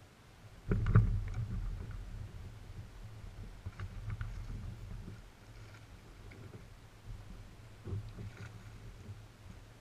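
Knocks and thumps on the plastic hull of a Wilderness Systems Ride 135 fishing kayak as the angler shifts and works his rod. The loudest is a sharp thump about a second in, followed by lighter knocks and small clicks, with another clear knock near the end.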